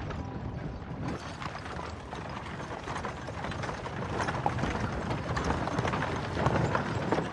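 Horse-drawn wooden carriage on gravel: hooves clip-clopping and the spoked wheels crunching over the stones, a busy stream of clicks growing louder in the second half.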